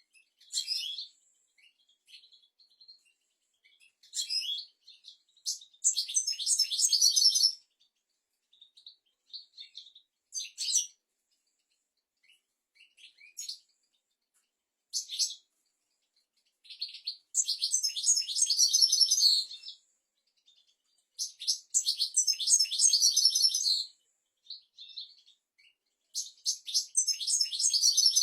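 European goldfinch singing: several long phrases of rapid, high twittering and trills, with short single notes in the gaps between them.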